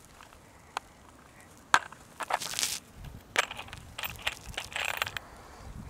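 Handling noises from setting a screw on an impact driver's bit and moving a 2x4 into place: scattered sharp clicks and two short crunchy rustles. The driver itself is not running.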